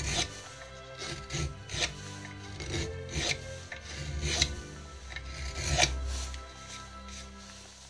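An old Mora knife, its blade bent for carving, shaving and scraping into a piece of oak held in a vise: about seven irregular rasping cuts.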